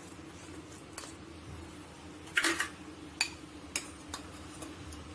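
A spoon clinking and tapping against a bowl while stirring a thick, coarsely ground chana dal mixture: about six separate sharp clicks, the loudest a little past two seconds in, over a faint steady hum.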